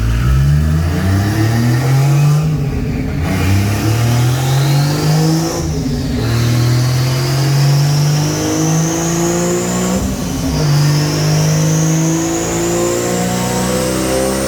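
Turbocharged Toyota 1JZ inline-six revving hard under load. Its pitch climbs repeatedly and falls sharply about 3, 6 and 10 seconds in before climbing again. A high whine rises along with the engine speed.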